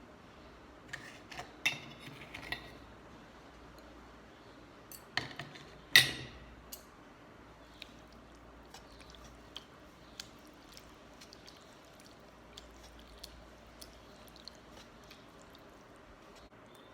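Eating at a meal of panta bhat (rice soaked in water): wet clicking and clinks of dishware. The loudest clink, with a short ring, comes about six seconds in. After it come many small, soft wet clicks.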